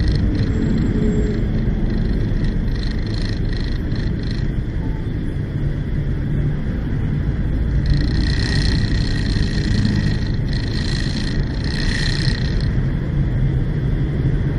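Steady low rumble of vehicle engines and road noise in dense, slow city traffic, with a fainter higher hiss swelling in and out about halfway through.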